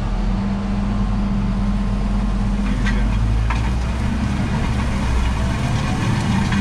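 Tractor engine running steadily, heard from inside the cab while it pulls a disc harrow through the field.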